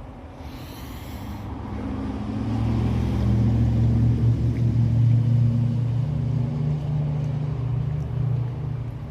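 A low rumbling hum that swells over the first few seconds, holds, then eases slightly near the end.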